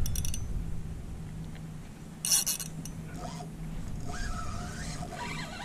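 Spinning reel and rod handling noise while fighting a hooked fish, with a few light clicks at the start and a short, louder burst of rapid clicking about two seconds in.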